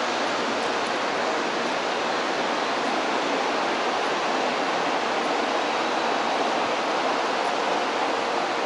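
Steady, even rushing noise of a Shinkansen station platform, with no distinct events.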